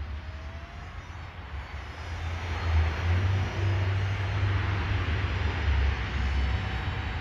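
Radio-controlled paramotor's propeller motor running overhead, growing louder about two seconds in as it comes closer, over a low irregular rumble.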